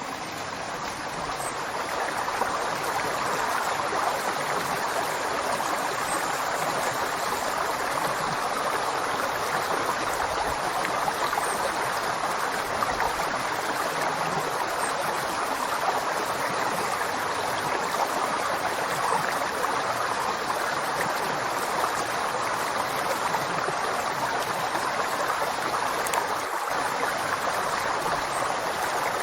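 Flowing river: a steady rushing of water. It dips briefly at the start and builds back up over the first few seconds, then holds even.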